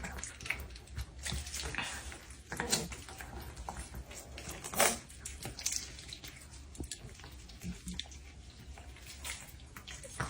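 A dog eating: irregular chewing and smacking, with one louder click about five seconds in.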